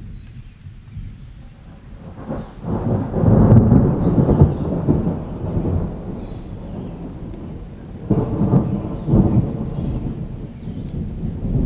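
Thunder rolling over steady rain. A long low rumble builds about two seconds in and fades over several seconds, and a second roll comes about eight seconds in.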